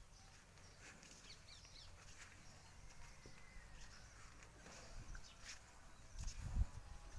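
Birds chirping faintly in short, scattered calls, with a low rumble rising near the end.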